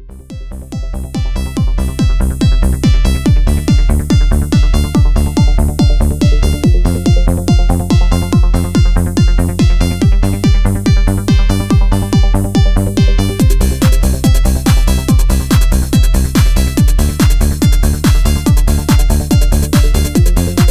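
Electronic dance music with a steady pulsing beat, about two beats a second, fading in over the first couple of seconds. A brighter high layer comes in about two-thirds of the way through.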